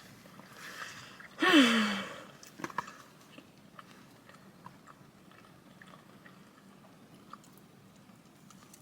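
Quiet chewing and mouth sounds of a person eating, with faint clicks. About a second and a half in comes one short vocal sound, a hum or sigh that falls in pitch.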